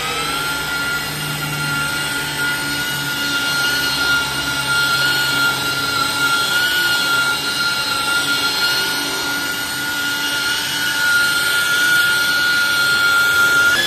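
Electric rotary car polisher running at a steady speed, a high, even motor whine as its foam pad works the paint of a car bonnet.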